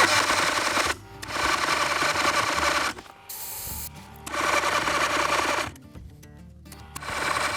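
A sawmill's carbureted engine being cranked by its electric starter in four bursts of one to two seconds each, turning over without catching: a cold start helped by ether starting fluid and choke.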